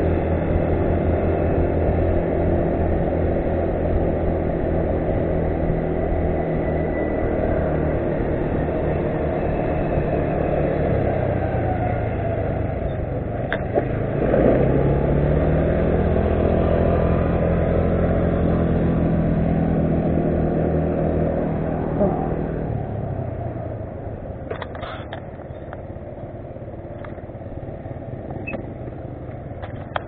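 Yamaha Cygnus RS 125 scooter and a 200 cc ATV running along a street, engines at a steady cruise with a rushing riding noise. About halfway the engine note drops and then rises again as they speed back up, and in the last several seconds it quietens as they slow, with a few handling clicks on the camera near the end.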